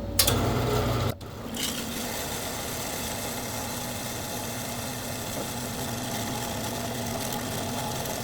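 Power saw switched on with a click, then running steadily through a cut in metal.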